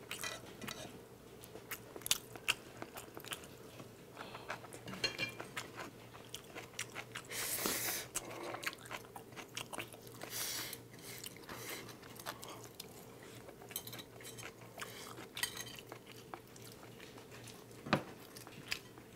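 Close-miked chewing and slurping of jjapaghetti (black-bean instant noodles), with chopsticks clicking against the bowls and a sharp click near the end.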